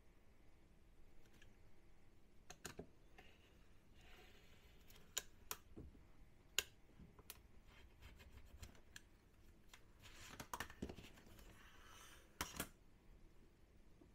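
Faint handling sounds of cutting peel-and-stick vinyl tile on a cutting mat: scattered light clicks and taps of the cutting tool and ruler, with a few short scraping or rustling stretches, the longest about ten seconds in.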